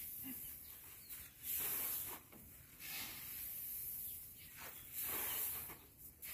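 Loose rice grain being scooped from a heap and poured into a woven plastic sack, making several hissing rushes of grain, each lasting about half a second to a second.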